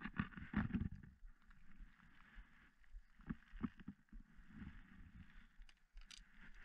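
Rustling and low thumps of someone moving on a grassy bank and handling a fishing rod, with a few sharp clicks about three and a half seconds in and a faint steady hiss behind.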